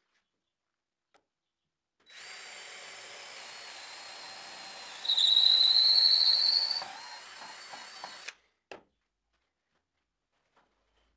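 Power drill running with a steady whine for about six seconds. For about two seconds in the middle it gets much louder and its pitch rises slightly, then it drops back to the quieter whine and stops. A single click follows.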